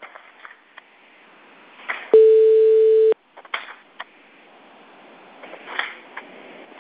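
Telephone-line recording of a call being placed: faint line hiss with scattered clicks. About two seconds in comes a single steady ringing tone lasting about a second, the ringback heard while the other phone rings before it is answered.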